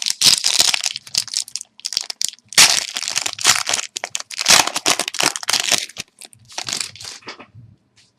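A trading card pack's wrapper crinkling and crackling as it is handled and torn open, in repeated bursts that stop near the end.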